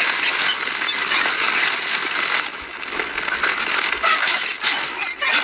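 A film soundtrack played back four times fast: a dense, high-pitched jumble of noise with many quick clicks running through it.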